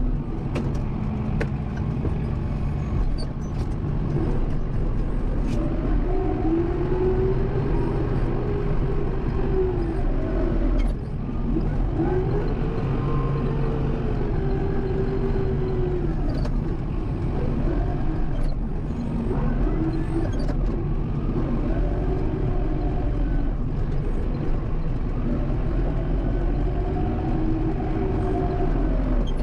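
Kubota M7060 tractor's four-cylinder diesel engine running under load while pushing snow. Its pitch rises and falls again and again over a steady low rumble.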